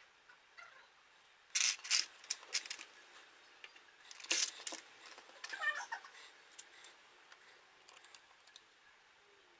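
Plastic keycaps and their clear plastic tray clicking and clattering as they are handled, in two louder clusters of sharp clicks with lighter ticks between. A short wavering tone sounds about six seconds in.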